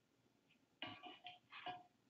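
Kitchenware clinking and clattering: a quick run of sharp knocks with short ringing tones, starting a little under halfway in.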